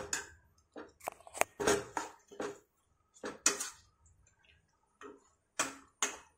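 Metal spoon scraping and clinking against a frying pan while stirring chicken pieces in thick masala: about a dozen short, irregular strokes with brief pauses between them.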